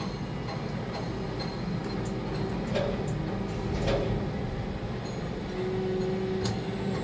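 Steady mechanical hum of a tower crane heard from its cab, with a thin high whine throughout and a few light clicks.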